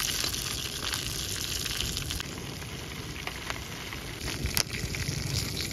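Sizzling and crackling in a foil stovetop popcorn pan heated on a portable gas stove. A steady hiss runs under scattered sharp clicks, a few of them louder around the middle and near the end.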